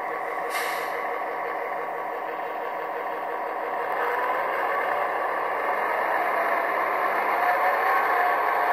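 Soundtraxx Tsunami 2 sound decoder playing EMD diesel engine sound through small cube speakers in an HO scale Athearn MP15AC model locomotive. About four seconds in the engine sound notches up, getting louder and rising in pitch, as the decoder's dynamic exhaust responds to the locomotive being held back by a finger.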